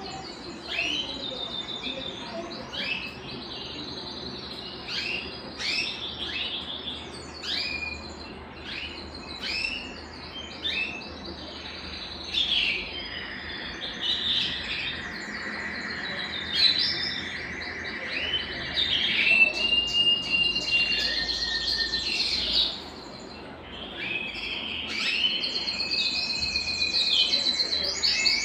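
Domestic canary (Belgian canary) singing a long, unbroken song of quick chirps and rapid trills, with a long held whistled note about halfway through.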